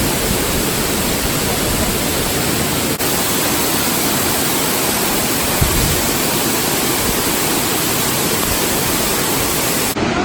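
Mountain stream water rushing over rocks in a gorge: a loud, steady rush with no let-up.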